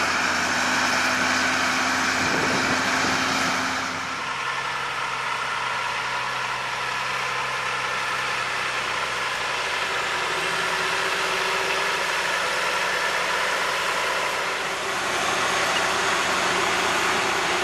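Heavy truck diesel engine idling steadily under a steady hiss. The engine note changes about four seconds in and again near the end as the shot moves from one truck to another.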